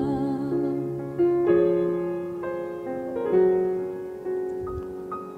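Soft, slow keyboard piano playing sustained chords, with new notes struck about once a second and fading between them.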